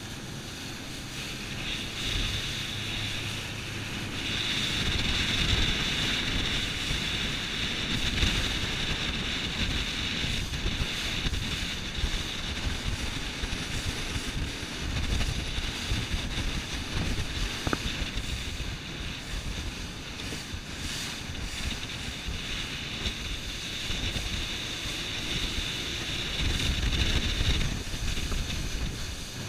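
Wind buffeting the microphone and water rushing past a fast-moving motorboat, with engine drone underneath and a steady high whine from about two seconds in until shortly before the end.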